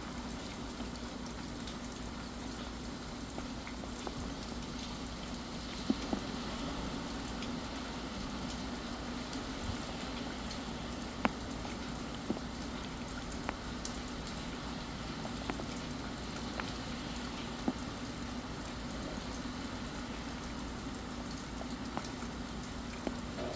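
Steady rain, with scattered louder drops tapping sharply every second or two.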